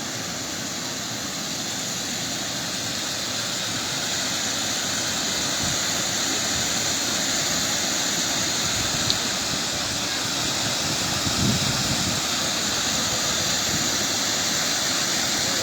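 Steady hiss of heavy rain with wind, growing a little louder over the first few seconds, with a brief low buffet of wind about eleven seconds in.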